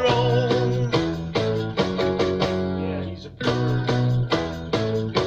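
Instrumental guitar music: plucked notes struck in a steady rhythm.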